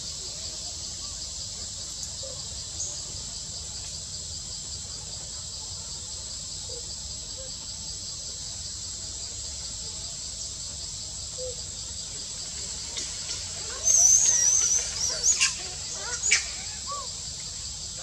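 Steady high-pitched drone of insects. About two-thirds of the way in, a bird gives a loud high warbling whistle and a couple of sharp clicks, the loudest sound here.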